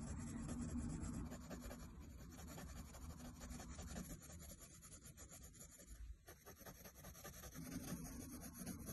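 Faint scratching of Faber-Castell Polychromos coloured pencils on grey toned sketchbook paper: quick, light strokes laying down a first layer of colour, with a short pause about six seconds in.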